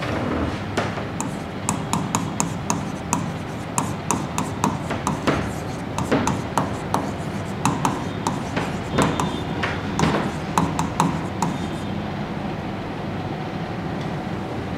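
Pen tip tapping and scratching on a writing board as a line of words is handwritten, a quick irregular run of sharp ticks. The ticks stop about three-quarters of the way through, leaving a steady hiss.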